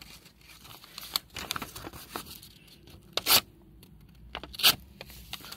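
Knife blade slicing through a sheet of paper, with the paper rustling and crackling and two louder cutting strokes, one a little past three seconds in and one near the end. It is a paper-cutting test of the edge's sharpness after use.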